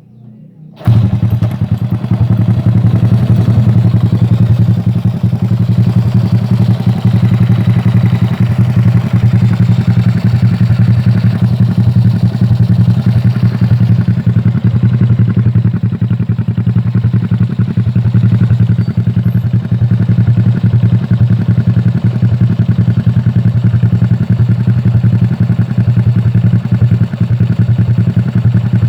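Honda Supra Fit 100cc single-cylinder four-stroke motorcycle engine running through an Akrapovic racing exhaust. It comes in suddenly about a second in, then idles loudly and steadily.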